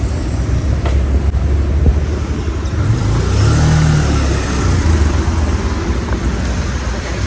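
Small two-wheeler engine running as the bike rides off, rising in pitch as it speeds up about three seconds in, with road and wind noise.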